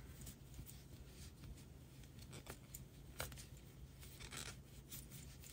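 Faint rustling of bulky yarn drawn through loops on a large 10 mm crochet hook, with a few light clicks and scrapes as stitches are worked.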